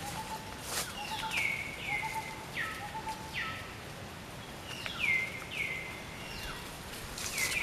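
High-pitched animal calls in pairs, each call sliding quickly down in pitch, with a pair about every second and a half. A lower, shorter note repeats through the first half.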